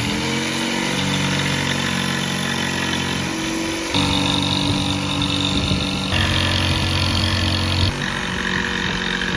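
Electric power tool running under load while cutting through plywood to open a square hatch hole; its pitch and level jump abruptly about four, six and eight seconds in.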